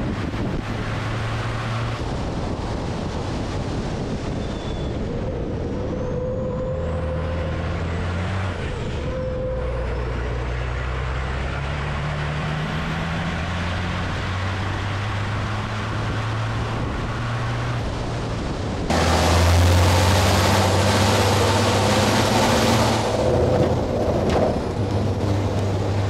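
Racing truck's turbodiesel engine running on track, its pitch shifting up and down in steps. About two-thirds of the way through a louder rushing noise comes in suddenly and carries on.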